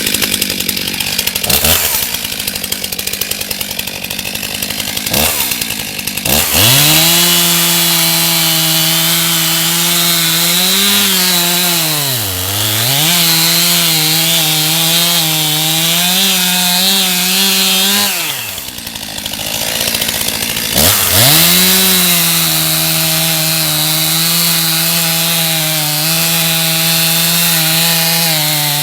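Stihl MS 271 two-stroke chainsaw with a 20-inch bar, running at full throttle while cutting into a large oak trunk. The engine note bogs down sharply about twelve seconds in and picks back up. It drops away for a couple of seconds in the second half, then comes back steady.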